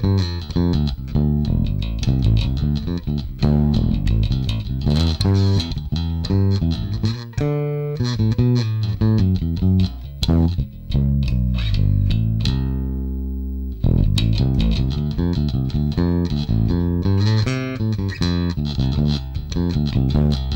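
Ernie Ball Music Man StingRay 4 bass played through a Markbass Little Mark Tube 800 amp with its preamp set to all tube: a fast run of plucked notes, with one note left ringing and fading a little past halfway before the riffing picks up again. Heard as a mix of the mic'd 2x10 cab and the amp's direct out.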